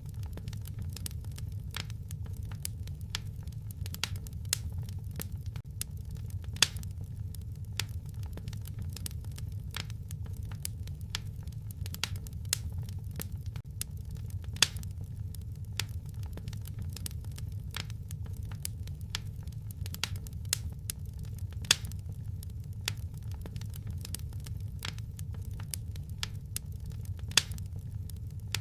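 Wood fire crackling in a fireplace: irregular sharp pops and snaps, with a louder crack every few seconds, over a low steady rumble of the flames.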